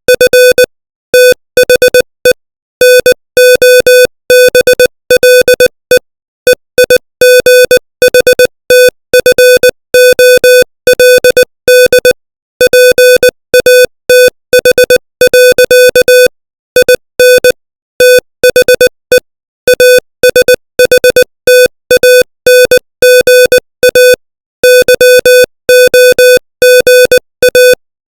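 Morse code sent at 20 words per minute: a single-pitched electronic beep keyed on and off in short dots and longer dashes, with brief gaps between letters and longer ones between words.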